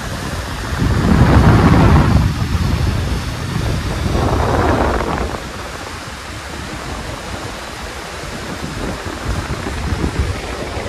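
Fast-flowing mountain river rushing under a small bridge, a loud steady wash of water noise. Wind buffets the microphone in two louder gusts, about a second in and again around four seconds in.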